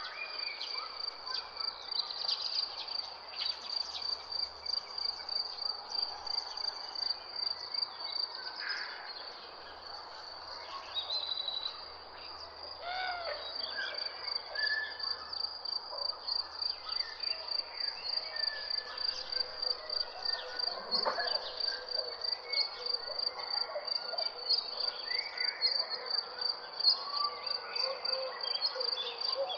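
A cricket chirping in a steady, fast-pulsing high trill, with short calls of several birds scattered over it.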